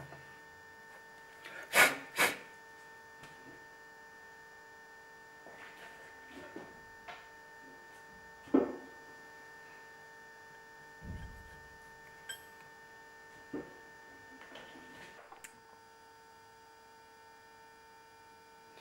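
Sharp metallic clicks and knocks from handling a workpiece in a stopped metal lathe's three-jaw chuck. Two loud ones come close together about two seconds in, another near the middle, and fainter ones are spread through the rest, with a low thud in between. A steady low hum runs under them.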